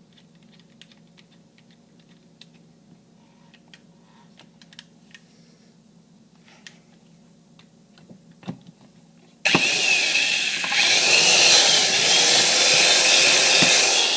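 Faint clicks and taps of handling. Then, about nine seconds in, an electric drill starts suddenly and runs loudly, its bit cutting through a metal bicycle seat post, with a wavering whine.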